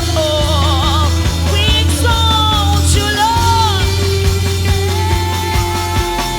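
Church worship band playing: a steady bass and regular drum beat under a gliding, wavering melody line.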